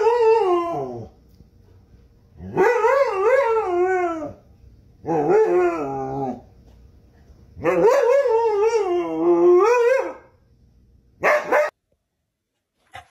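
Siberian husky giving drawn-out, wavering howl-barks: four long calls whose pitch wobbles up and down, then a short yelp near the end.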